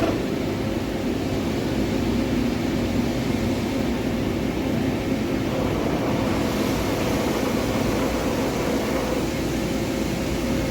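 Forest-Line MajorMill gantry mill's milling head being driven round its A and C rotary axes: a steady mechanical hum of the head's pinion and hypoid gear drive, with a few faint steady tones in it, growing a little brighter about six seconds in. The gear noise is normal for this head, in the owner's words the way it has always sounded.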